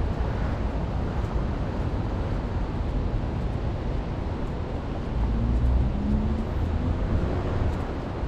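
Seafront street ambience with wind rumbling on the microphone; a vehicle passes, its engine louder for a couple of seconds just past the middle.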